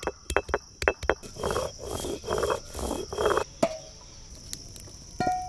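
Stone roller of a traditional grinding slab (ammikal) working raw turmeric into paste: a few sharp stone-on-stone knocks, then about four rhythmic scraping grinding strokes back and forth. Insects chirr steadily behind, and a single ringing clink comes near the end.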